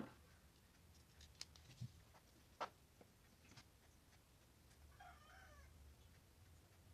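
Near silence with a few faint taps and clicks as small circuit boards and scissors are handled and set down on a wooden desk; the sharpest click comes about two and a half seconds in. About five seconds in there is a brief, faint animal call.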